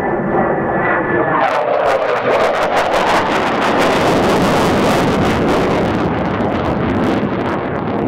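F-4EJ Phantom's twin General Electric J79 turbojets passing overhead: a high whine falling slightly in pitch, then about one and a half seconds in a loud, rough, crackling jet roar takes over as the aircraft moves away.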